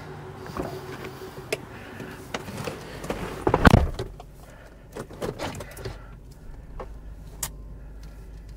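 A truck's engine starts with a loud burst about three and a half seconds in, then runs with a low, steady rumble as the truck pulls away. Scattered clicks and knocks come before and after.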